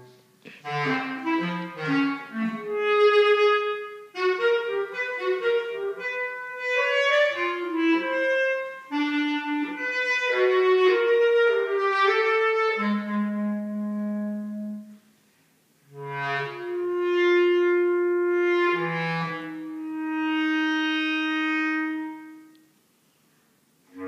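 Solo bass clarinet playing a run of short, quick notes that moves up and down in pitch, then several long held notes. It stops twice, for about a second each time, about two-thirds of the way in and near the end.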